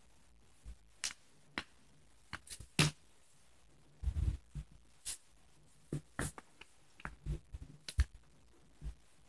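Pen writing on paper: scattered short scratches and taps of the pen tip as figures are written, with a soft low bump about four seconds in.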